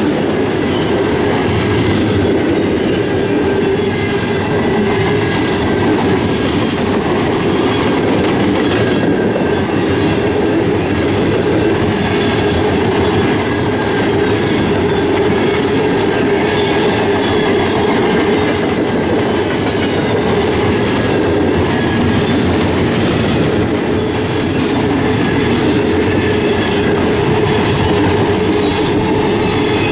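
Freight train of covered hoppers and tank cars rolling past at close range: a steady rumble of steel wheels on the rails, with a faint high ringing over it.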